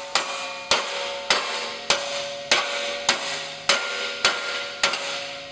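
Hammer blows on a laser-welded carbon steel T-joint held in a steel bench vise: about nine evenly spaced strikes, a little over one a second, each leaving the steel ringing briefly. This is a fillet weld break test, meant to knock the joint apart.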